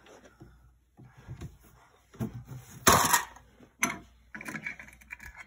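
Wooden knocks and clatter from a child handling a toy kitchen's cabinet doors and toy pots and dishes: a few separate knocks, the loudest about three seconds in, then a short scraping rattle near the end.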